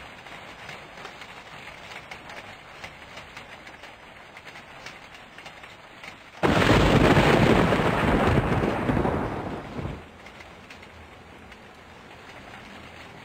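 Steady rain pattering, then a sudden loud thunderclap a little past halfway that rumbles for about three seconds and dies away.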